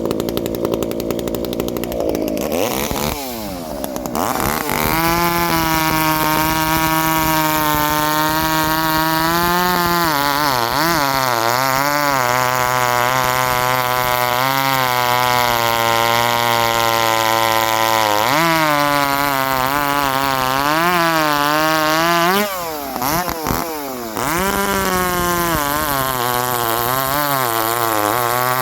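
Small two-stroke chainsaw engine running at high revs. After a rough, noisy start it settles about four seconds in, holds a steady high pitch, then wavers up and down as the throttle is worked. It drops briefly about three-quarters of the way through before picking up again.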